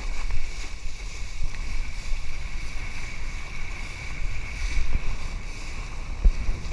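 Wind buffeting the microphone and water rushing under a paddleboard towed at speed through chop, with a steady faint high whine over it and a sharp knock a little before the end.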